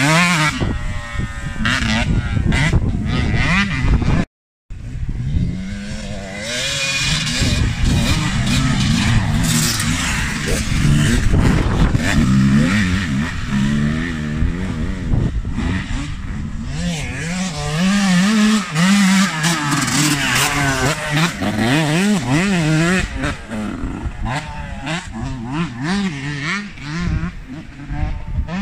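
Dirt bike engines revving up and down repeatedly as the motocross bikes accelerate and shift along a sandy track, with the sound cutting out briefly about four seconds in.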